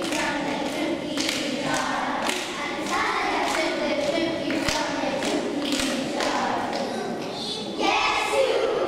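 A group of young children singing together, with scattered thumps and claps.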